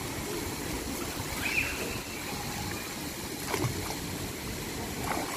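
Pool water sloshing and lapping around a wader, with a brief sharper splash about halfway through, over steady outdoor background noise.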